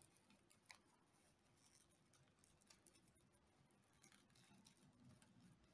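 Near silence, with faint rustling and a few light clicks of crocheted paper yarn being pinched and folded by hand.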